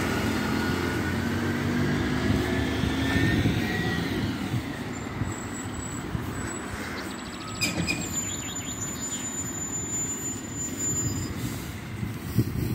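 A diesel refuse-collection lorry runs as it drives off along the street, growing fainter as it moves away. A high whine rises and falls over it in the first few seconds.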